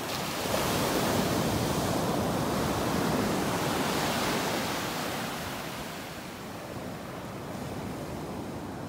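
Surf breaking and washing up the beach: a steady rush of waves that eases a little about halfway through.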